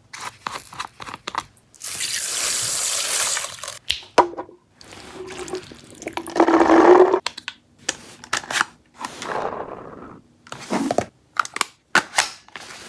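Clicks and knocks of a toy gel blaster being handled, with a hiss lasting about two seconds starting about two seconds in. A louder stretch of hissing over a steady hum follows around six to seven seconds in.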